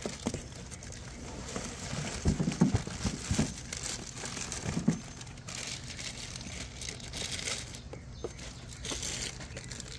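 Plastic wrapping crinkling and rustling as plastic-bagged car headlights are handled and lifted out of a cardboard box, with a few louder knocks of handling in the first half.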